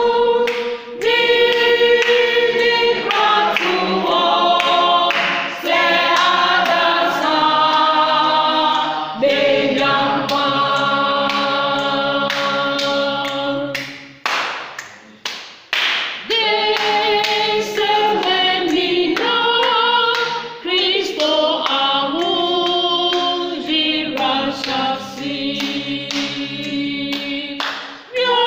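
A church singing band, a choir, singing a sacred song in harmony, with a short break in the singing about halfway through.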